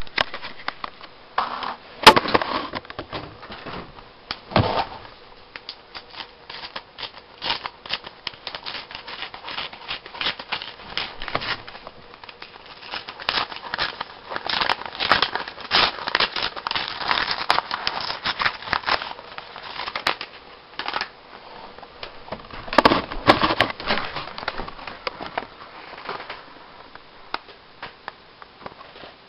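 Paper rustling and crinkling as sheets are pressed, folded and crumpled by hand: a dense run of crackles with heavier bursts about two seconds in, through the middle and again near the end.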